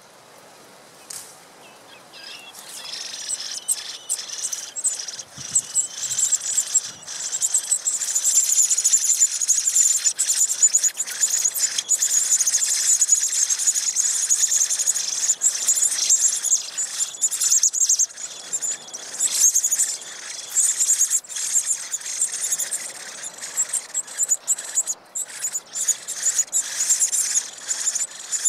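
Common blackbird nestlings begging for food: a dense, high-pitched cheeping that starts a couple of seconds in, builds to a steady chorus, and turns choppier near the end.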